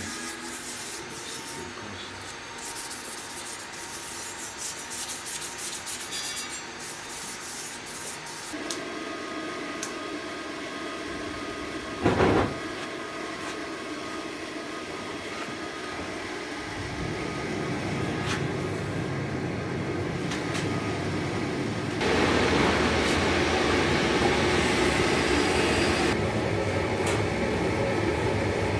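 Gas forge running, its burners giving a steady roar that grows louder in steps, the biggest jump about three-quarters of the way through. A short, loud burst of noise stands out about twelve seconds in.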